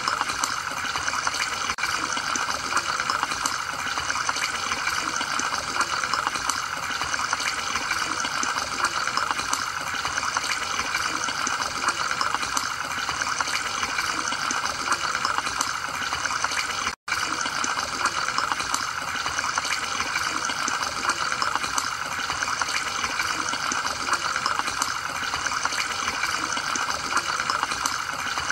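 Aquarium filter and aeration running: a steady rush of water with constant fine bubbling. It drops out for an instant about two-thirds of the way through.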